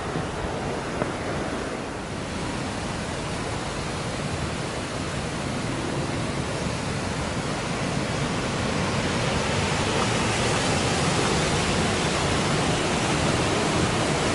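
Temperance River whitewater rushing down a rocky gorge: a steady, even rush of falling water that grows louder about halfway through.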